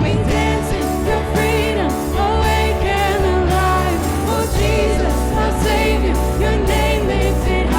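Live worship band playing a Christian praise song, with a singer's voice over bass, keys and drums.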